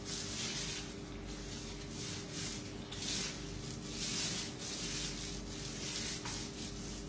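Paint roller loaded with white emulsion paint rasping over a bare, unprimed cement surface in repeated back-and-forth strokes, about one a second.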